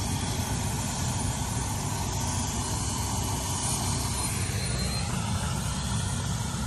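Steady low rumble of vehicle engines running.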